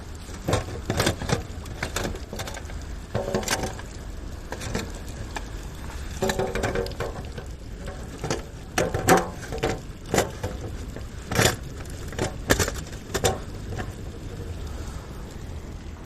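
Wood fire crackling, with sharp irregular pops and snaps over a low steady background.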